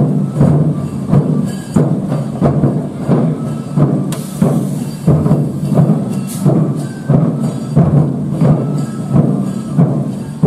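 Music with a steady percussive beat, drum strikes about two a second.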